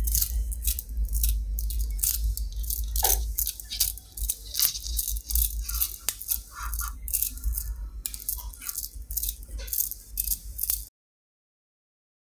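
Small neodymium magnet balls clicking and rattling against each other as a clump is pulled apart by hand into a chain: quick, irregular clicks that cut off suddenly near the end.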